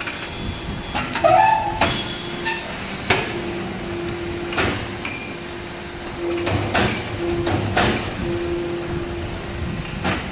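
Automatic compressed earth brick machine (HBY4-10 interlocking clay brick press) running through a brick-making cycle: a string of loud metal clanks and knocks, about seven in all, with a steady hum that switches on and off several times in the second half.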